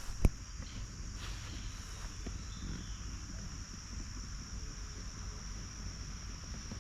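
Insects chirring in one steady, high, unbroken drone, over a faint low rumble, with a single sharp click just after the start.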